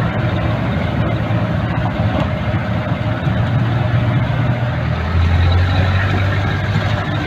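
4x4 jeep's engine running as it drives over a rough gravel track, a steady low drone under road and cab noise. The drone grows louder about five seconds in.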